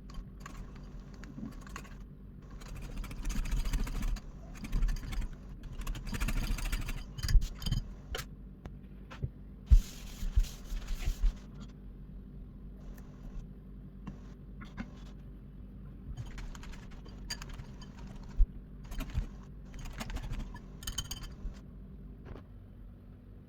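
Kitchen work: dishes and utensils clinking and scraping, with a few louder spells of scraping and several sharp knocks, over a faint steady hum.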